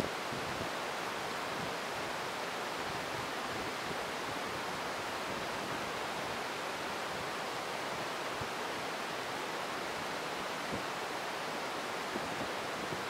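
Very heavy rain pouring down as a steady, even hiss, heard from inside a vehicle.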